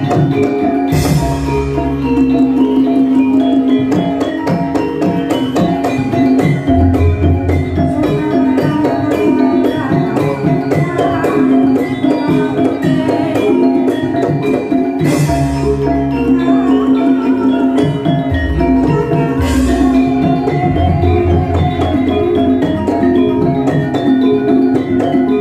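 Live Javanese gamelan music: metallophones ring a steady melody over drum strokes. Deep strokes and bright louder strikes come about a second in and again around fifteen and nineteen seconds.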